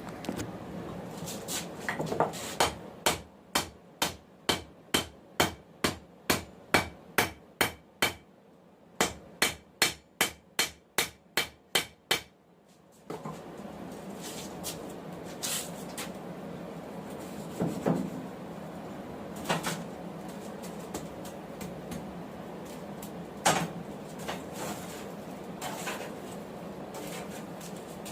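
Blacksmith's hammer striking hot 1080 high-carbon steel on an anvil, forging a knife blank: about two dozen sharp, ringing blows at a steady pace of two or three a second, with a brief pause about a third of the way through. After the hammering stops comes a steady background noise with a few scattered knocks.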